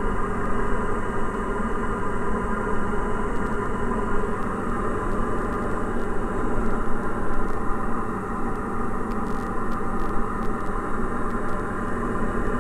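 Steady drone of a Diamond DA40 NG's Austro AE300 turbo-diesel engine and propeller in flight, heard inside the cabin: an even hum of many tones over the rush of the airflow.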